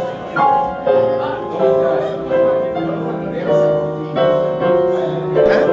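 Piano playing sustained chords, moving to a new chord every half second to a second.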